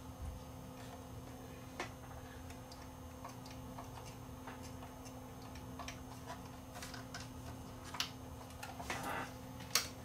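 Quiet bench with a faint steady low hum and a few light, irregular clicks from handling the powered CRT TV. The set no longer makes its loud buzz now that its burnt standby-supply filter capacitor has been replaced, though it still does not turn on.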